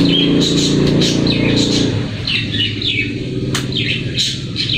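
Small birds chirping over and over in short high calls, with a motor vehicle engine running underneath that fades away about two seconds in.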